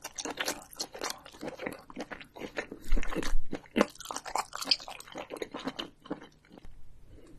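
Close-miked ASMR chewing of a mouthful of grilled abalone: a dense run of short chewing clicks, loudest about three seconds in and thinning out near the end.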